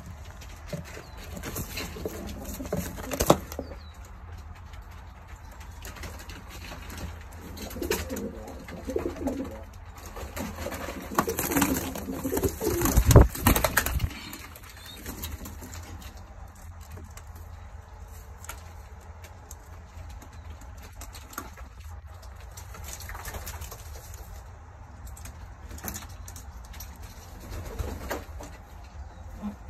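Pigeons cooing, with a few knocks and scuffles; the loudest knock comes a little before halfway through.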